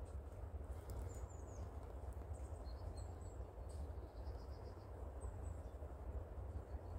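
Small birds chirping faintly, a few short high calls scattered through, with a quick trill about four and a half seconds in, over a steady low rumble.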